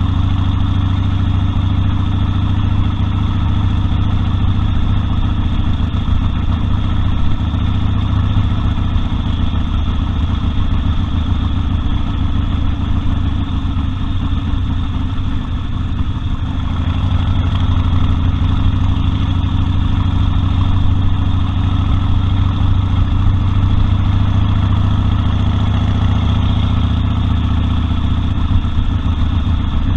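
Harley-Davidson Sportster Custom 1200's air-cooled V-twin engine running steadily, easing off slightly about halfway through and then picking back up.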